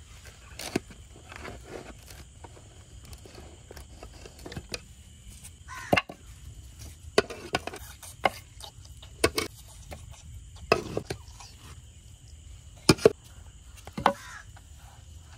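Serving utensils knocking and clinking against a cooking pot and plates: about a dozen sharp, irregular strikes, some with a short ring.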